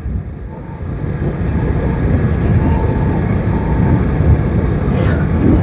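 Road vehicle on the move: a steady low rumble of engine and road noise, growing louder over the first couple of seconds.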